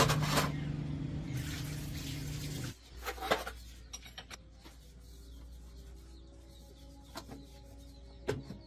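An engine running steadily, with a hiss like spraying water over it, cuts off abruptly nearly three seconds in. A few sharp metallic knocks follow over a faint background.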